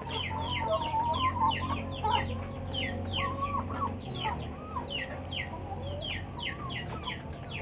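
Chickens calling: a steady run of short, high, falling peeps, about three a second, over lower wavering clucks, with a low hum underneath.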